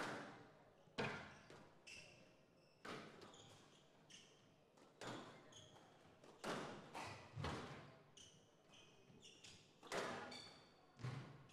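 A squash rally: the rubber ball struck by rackets and slapping off the court walls about ten times at an uneven pace, each hit echoing in the hall, with short high squeaks of shoes on the court floor between hits.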